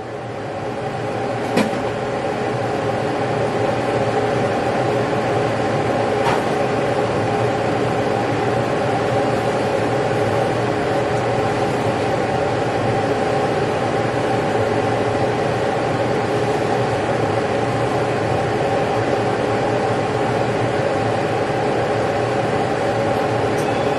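Steady fan-motor hum with several pitched tones over a whooshing haze, coming up to speed over the first two or three seconds and then holding steady. A light click or two sound over it.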